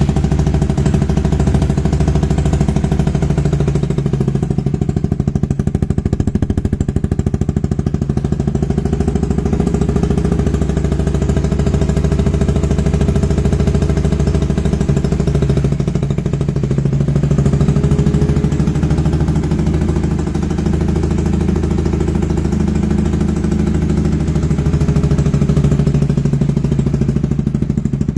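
Motorcycle engine idling through a homemade muffler made of 3-inch PVC pipe on a racing slip-on exhaust: a steady, low, pulsing exhaust note, with a brief slight rise in pitch about two-thirds of the way in.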